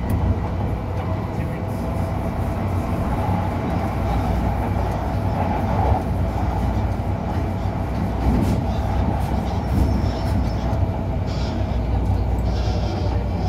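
MTR M-Train electric multiple unit running, heard from inside the carriage: a steady low rumble with a faint steady whine through it.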